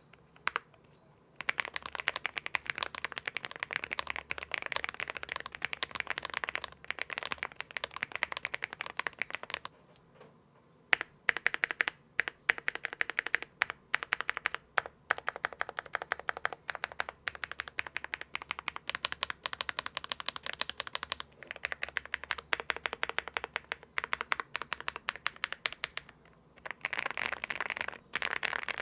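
Typing sound test on an Akko M1 V5 aluminium mechanical keyboard with Akko Creamy Yellow Pro switches, foams and tape mod: fast continuous keystrokes, with a short pause about ten seconds in and another near the end.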